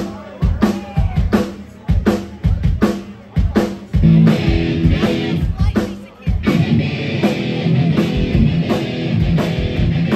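Crossover thrash band playing live through a PA: the drum kit beats out a steady pattern of hits for about four seconds, then the distorted guitar and bass come in and the full band plays on loudly.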